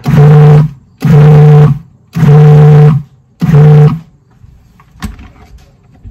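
Food processor pulsed four times in quick succession, each run under a second with a steady motor hum, its blade cutting water into pie crust dough of flour and butter. A single click about five seconds in.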